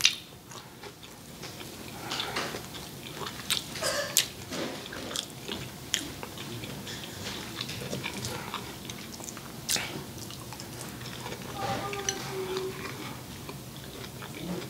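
Close-miked chewing of forkfuls of noodles, wet mouth sounds with scattered smacks and clicks.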